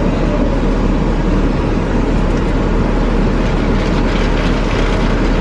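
Steady cabin noise inside a car idling: a constant low hum under an even rush.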